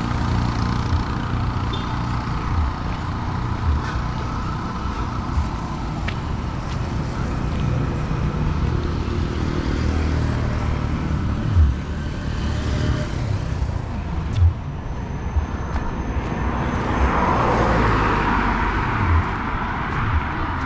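A vehicle's engine and road noise while driving along a road, with a few sharp knocks from bumps. A louder rush of traffic noise swells near the end.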